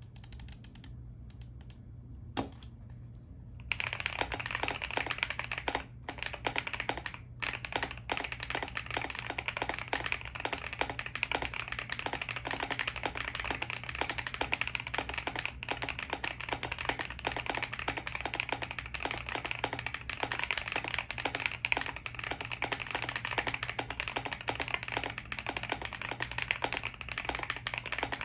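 Typing on a GMK67s 65% mechanical keyboard with factory-lubed Leobog Greywood V4 linear switches and PBT Cherry-profile keycaps, its case filled with Poron foam and tape-modded. A single keystroke about two seconds in, then fast, continuous typing from about four seconds in, with short breaks near six and seven seconds.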